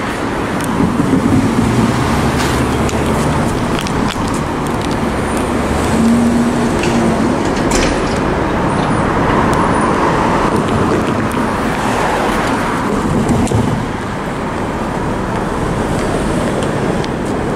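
Road traffic running past, a steady rumble of passing vehicles.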